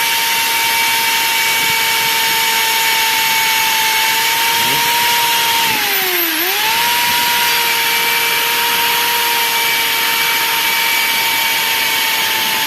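Electric drill spinning a valve against its seat in the cylinder head to lap it with lapping paste. The motor runs with a steady whine, slows briefly about six seconds in and picks up speed again.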